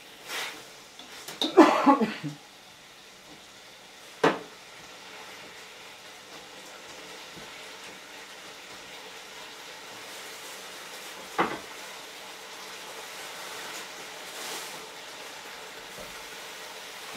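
A spatula scraping and clattering in a steel wok as chicken is stir-fried, then two sharp knocks several seconds apart. Between and after them the chicken sizzles steadily in the hot wok.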